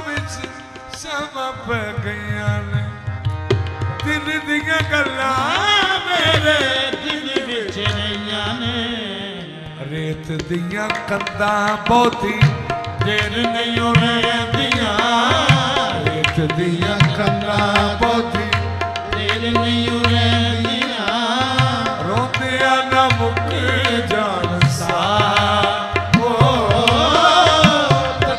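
Live qawwali-style devotional music: a male lead voice singing long, ornamented lines over harmonium accompaniment, with a hand-drum beat. The music eases briefly about a third of the way through, then picks up again.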